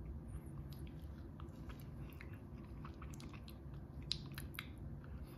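Faint wet mouth sounds of a person tasting hot sauce: scattered small lip smacks and tongue clicks, one a little louder about four seconds in.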